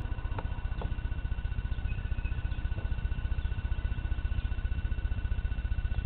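House cat making a steady, rapid, low pulsing sound while watching birds. A faint steady high-pitched tone runs alongside.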